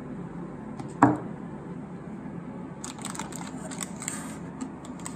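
Items being handled in a cardboard box: a brief knock about a second in, then a cluster of small clicks and rustles as plastic-bagged hardware and tools are moved about.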